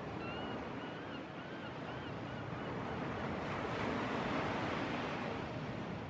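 Sea surf washing and breaking, a steady rush of waves. A faint wavering high call is heard in the first couple of seconds.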